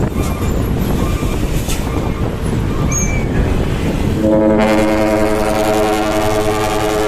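A multi-tone trumpet air horn sounds one long blast of about three seconds, starting a little past halfway, over steady traffic and engine noise.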